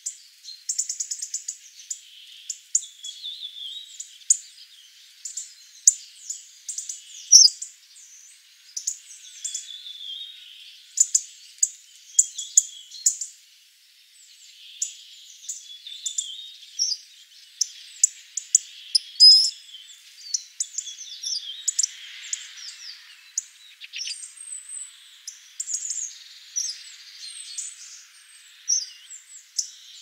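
Hawfinches calling: a busy, unbroken run of short, sharp, high ticks and chirps, several close together at times.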